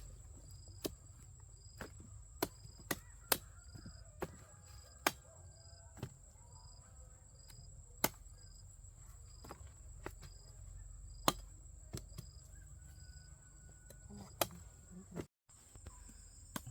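Sharp chopping strikes at an irregular pace, about one a second, from a blade hacking at harvested cassava. A steady high insect drone and an insect chirping about twice a second run underneath.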